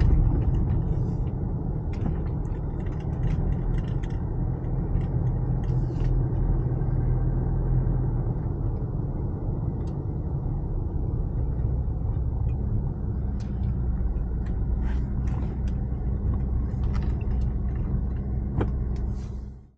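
Car driving along a road: steady low engine and tyre rumble, with scattered light clicks and rattles.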